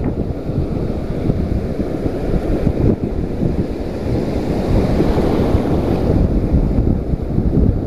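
Surf breaking and washing through the shallows, with heavy wind buffeting the microphone.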